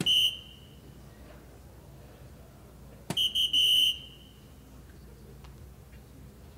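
Soft-tip darts hitting a DARTSLIVE electronic dartboard, each hit answered by the board's high electronic beep as it registers the score. A single short beep comes with the first hit, and about three seconds later a second hit brings a quick run of beeps, the last held a little longer.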